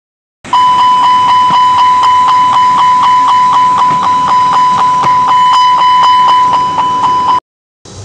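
A320 lavatory smoke detector alarm sounding during a smoke detector test: a loud, steady high tone pulsing about four times a second. It starts about half a second in and cuts off suddenly near the end.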